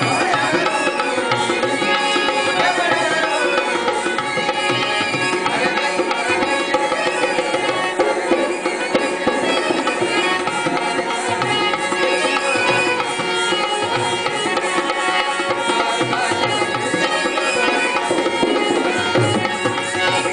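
Rajasthani folk music: a dholak, a two-headed barrel drum, played by hand in a steady rhythm under a wavering sung or reed melody and steady held tones.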